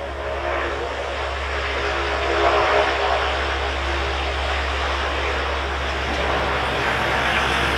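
A C-130H Hercules's four Allison T56 turboprop engines running on the ground with the propellers turning: a steady drone over a low hum, swelling slightly about two and a half seconds in.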